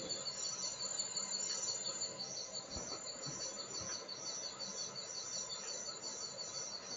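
Insects, crickets by the sound of it, chirping steadily at night: a fast, even pulsing trill with a second high chirp repeating about twice a second over a constant high whine.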